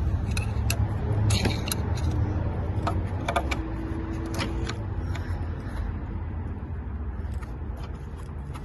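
Scattered metallic clicks and scrapes of a pry bar or flat screwdriver working a stuck EGR valve loose on a 6.0L diesel, over a steady low rumble that fades slightly toward the end.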